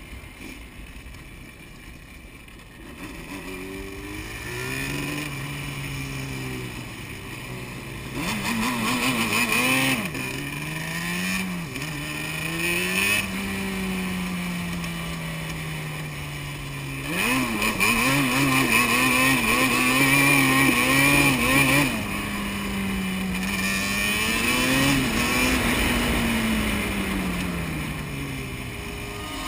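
Yamaha Banshee's twin-cylinder two-stroke engine being ridden hard, revving up and dropping back again and again as it accelerates through the gears. It starts quietly, is at its loudest and highest about two thirds of the way through, then winds down slowly near the end.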